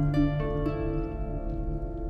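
Background music: a few plucked notes over sustained held tones.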